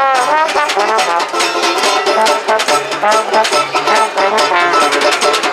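Acoustic jazz band playing an instrumental passage: trombone in the lead with sliding pitch bends, over upright bass, strummed banjo and snare drum played with sticks.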